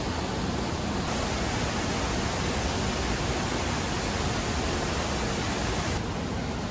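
Steady rushing of a waterfall, an even hiss with no distinct events; it is a little softer in the highs near the end.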